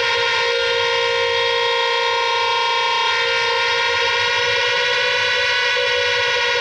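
Harsh noise / ambient noise music: a loud, steady, distorted electronic drone of many held tones layered together, with no beat.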